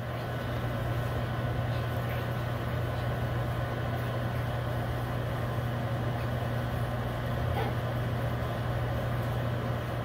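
Microwave oven running: a steady low hum with fan noise.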